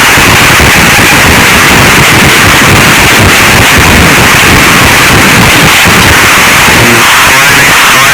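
Harsh noise music: a dense, heavily distorted wall of static and crackle at full level, chopped by rapid stuttering glitches.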